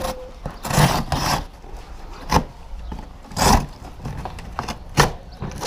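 A large shipping box being opened and its contents pulled about: rubbing and scraping of packaging, with a few sharp knocks.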